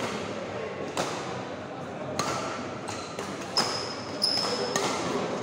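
Badminton doubles rally: rackets hitting the shuttlecock with sharp knocks about a second apart, five or so in all. In the middle come brief high squeaks, typical of court shoes on the floor, over a steady murmur of spectators' voices.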